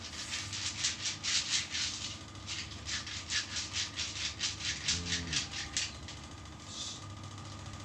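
Hands rubbing briskly over bare skin in a massage, rapid hissing strokes about four a second in two runs, with a short pause near two seconds in.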